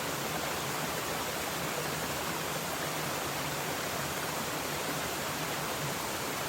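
Mountain stream running, a steady rushing babble with no breaks.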